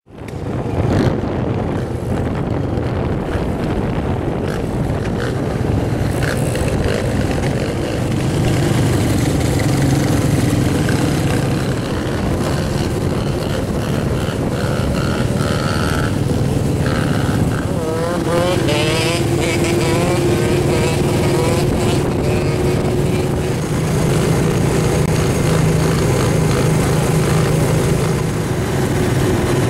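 ATV engines running steadily while riding along, with the engine pitch sliding up and down for a moment about eighteen seconds in.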